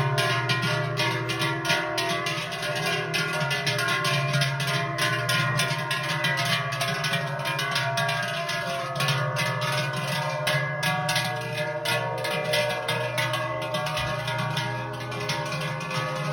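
Many large cowbells on a herd of walking cows ringing continuously, a dense clanging of overlapping metallic tones.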